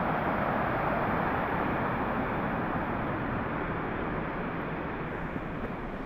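Waterfall's rushing water, a steady hiss that eases slightly over the few seconds.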